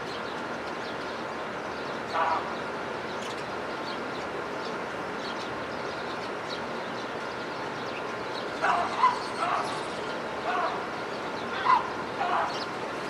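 Short pitched animal calls, one about two seconds in and a run of several from about eight and a half seconds on, over a steady hiss, with a few faint high chirps.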